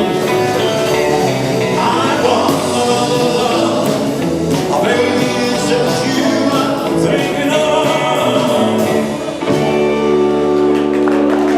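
Live band playing fifties rock 'n' roll with a singer, ending on a long held final chord about nine and a half seconds in.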